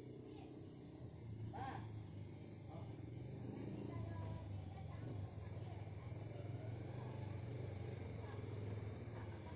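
Crickets chirring steadily over a low hum, with a faint short call about two seconds in.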